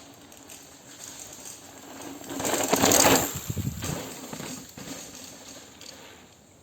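Downhill mountain bike ridden past, its tyres rushing over the dirt trail. The sound swells to a peak about three seconds in and then fades away.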